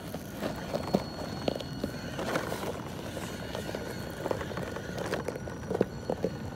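RC rock crawler climbing a sandy, rocky slope: irregular clacks and crunches as its knobby tyres grab and slip on rock and sand, with a faint steady high whine.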